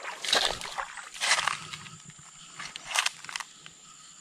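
Water splashing and sloshing beside a fishing kayak in three short bursts, about a second in, near the middle and again later.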